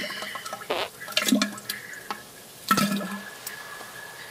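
Three short, wet plops and splashes into toilet water, about a second apart, from someone defecating on the toilet.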